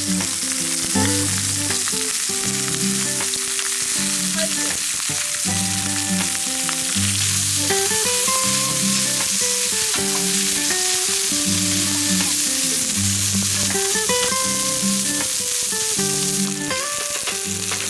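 Steak sizzling on a hot iron griddle, a steady high hiss, with background music of slow, sustained notes playing over it.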